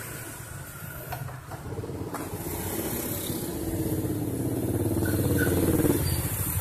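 Motorcycle engine running close by, growing louder over several seconds and dropping away about six seconds in.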